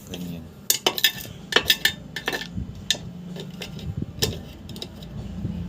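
A quick run of sharp metallic clinks and clicks from small metal parts and tools being handled during work on a mixer's power supply, followed by a few scattered knocks.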